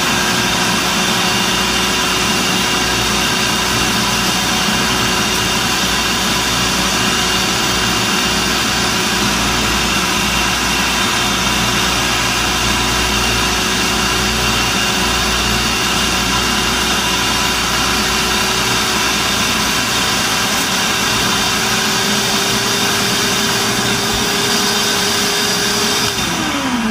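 Countertop food processor running on high, churning canned chicken, mozzarella and gelatin into a thick paste: a loud, steady motor whine that creeps slightly higher in pitch. It is switched off near the end and its pitch falls as it winds down.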